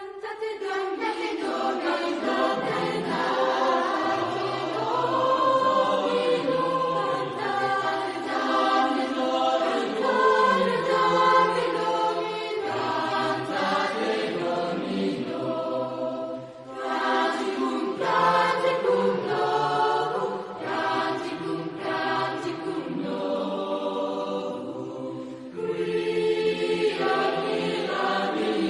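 A choir singing a sacred choral piece in several voice parts, starting suddenly at the very beginning, with short breaths between phrases about halfway through and again near the end.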